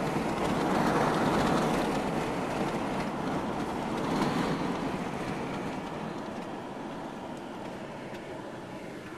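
Steady rolling vehicle rumble, loudest for the first few seconds and then fading gradually.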